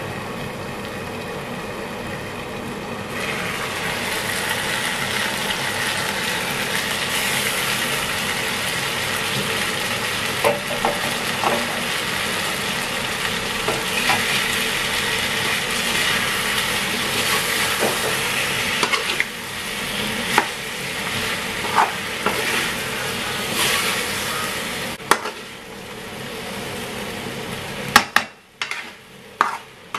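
Chicken curry with potatoes and carrots sizzling in a metal wok, its cooking water nearly boiled away. The sizzle grows louder a few seconds in. A metal utensil stirs through the pan, scraping and knocking against it, with several sharp knocks near the end.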